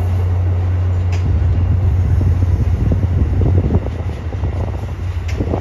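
Amtrak passenger train of stainless steel cars rolling slowly through the station, a steady low rumble that eases off a little past the middle, with two sharp clicks from the wheels, about a second in and near the end.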